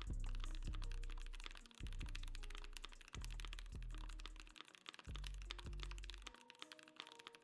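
Mechanical keyboard with lubed Gateron Cap switches typed on quickly, a steady run of keystrokes with a deep, thocky sound. Music with a deep bass line plays under the typing and drops out near the end.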